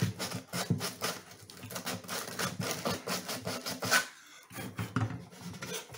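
Sandpaper rubbed over wood in quick back-and-forth strokes, a few a second, raising a little sawdust; the strokes pause briefly about four seconds in, then start again.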